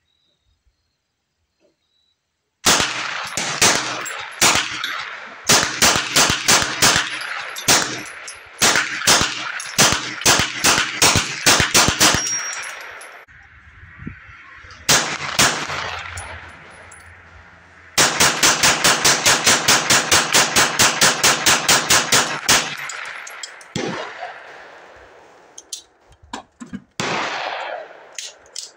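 Semi-automatic, striker-fired Suomi build firing strings of single shots in quick succession, the fastest run about four to five shots a second for several seconds past the middle. A few quieter knocks follow near the end.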